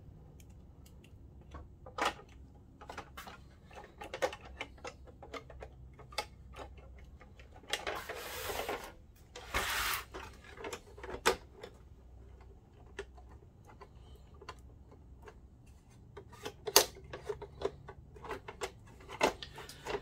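Plastic housing parts of a Dell 1650 DLP projector being handled: a run of small clicks and knocks, with two short scraping sounds about eight and ten seconds in.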